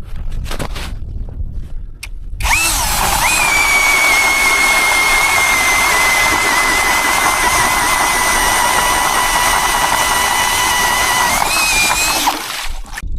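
Cordless drill spinning an ice auger through the ice: a steady motor whine that starts about two seconds in, runs for about ten seconds, rises slightly in pitch just before it stops, and cuts off near the end.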